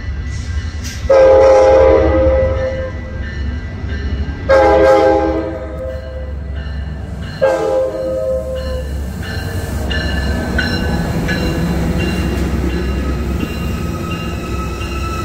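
Train air horn sounding three blasts, two long and a shorter third, each a chord of steady tones. Then the steady rumble of the train running by, with faint high metallic tones.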